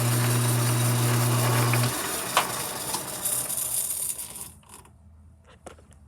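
Mini lathe running with a steady motor hum and gear noise, switched off about two seconds in; the mechanism spins down and fades out over the next couple of seconds, with a few small clicks near the end.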